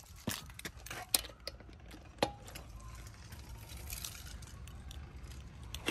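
Scattered sharp metal clicks and clinks of a torque wrench and socket on the wheel's lug nuts as they are torqued to 100 foot-pounds, the loudest a little after one second and just after two seconds in.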